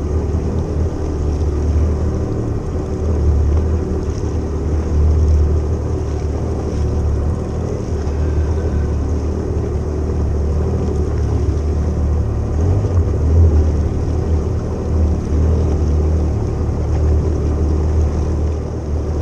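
Jet ski engine running at a steady idle, a low even hum, with wind buffeting the microphone.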